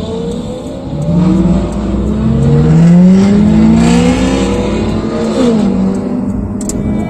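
Car engine accelerating, its pitch climbing steadily, then dropping quickly about five and a half seconds in and climbing again, as at an upshift.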